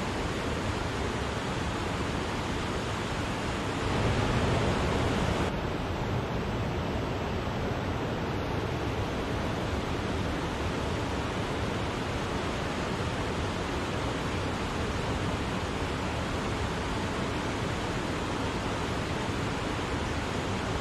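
Steady rushing of the Wachirathan waterfall, a dense even roar of falling water, swelling slightly louder for about a second and a half around four seconds in.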